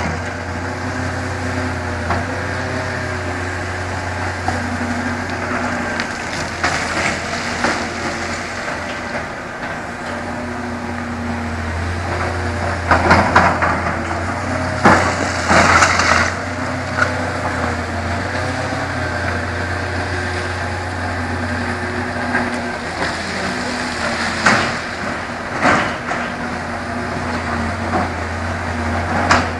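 Heavy construction machinery, excavators with diesel engines, running steadily with a low rumble and a wavering engine note. Rock rubble crunches and clanks sharply several times, around halfway through and again later on.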